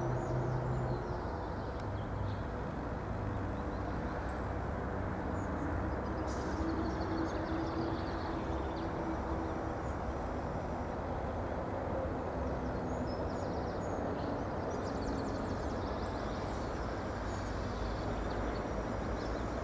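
Irish Rail 22000 class diesel multiple unit running on its underfloor diesel engines as it draws slowly into the platform and nearly stops: a steady low rumble with a hum. Birds chirp now and then.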